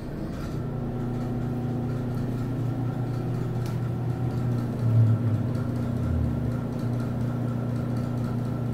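Penn Zephyr Mid-blower ceiling exhaust fan running with a loud rattle over its steady hum, which swells briefly about five seconds in.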